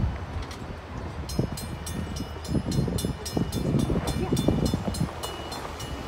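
Railroad grade-crossing warning bell ringing in quick, evenly spaced dings as the crossing gates lift after the train has cleared. It starts about a second and a half in and stops about five seconds in, over a low, uneven rumble.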